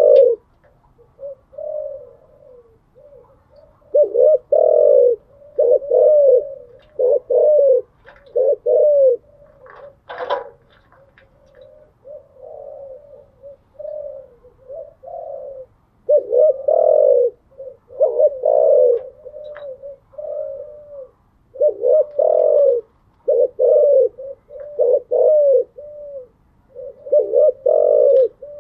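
Spotted dove cooing again and again, each phrase a run of low, rounded coo notes at about the same pitch. The coos are softer for a few seconds in the middle, and there is one brief sharper sound about ten seconds in.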